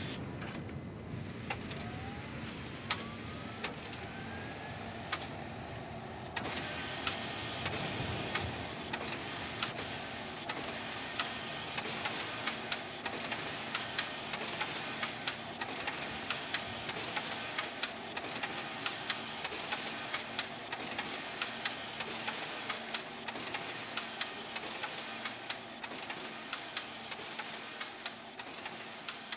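Knitting machine working: a steady mechanical whir with many sharp clicks, which gets brighter and busier about six seconds in.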